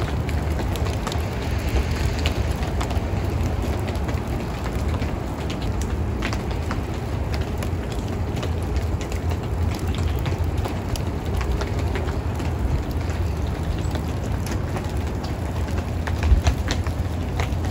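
Outdoor ambience in a wet snowfall: a steady low rumble with many scattered light ticks, and one thump near the end.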